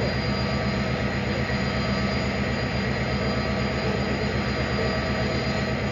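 Stadler FLIRT electric multiple unit passing slowly. It makes a steady rumble of wheels and running gear, with several steady whining tones from its traction equipment.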